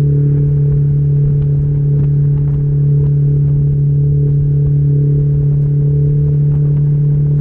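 Mercury 60/40 jet outboard running at a steady cruise, a constant drone with no change in pitch, over a low rumble.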